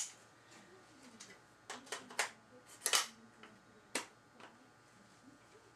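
Sharp metallic clicks and clacks from an AR-15 rifle being handled, about five of them spread between two and four seconds in, the loudest about three seconds in.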